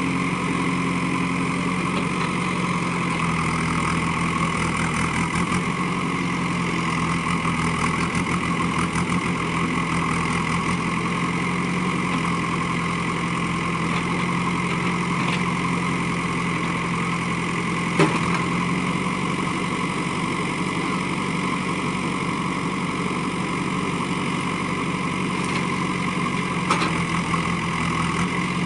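JCB backhoe loader's diesel engine running steadily while the backhoe arm works at a tree's base, its note shifting slightly up and down with the load. A single sharp knock about eighteen seconds in.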